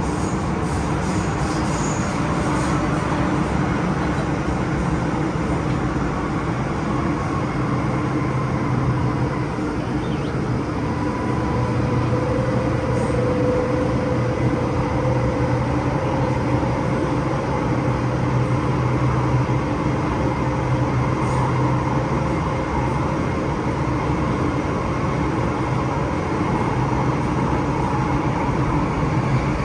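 MTR Kwun Tong line M-Train running between stations: a steady rumble of wheels on rail with an electric traction motor hum, its pitch rising slightly about halfway through.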